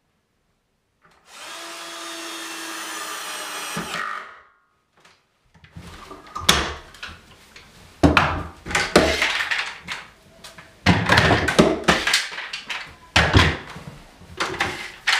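Compact cordless drill-driver runs steadily for about three seconds and stops. Then come a series of irregular knocks, clicks and rattles as plastic-jawed bar clamps are released and set down.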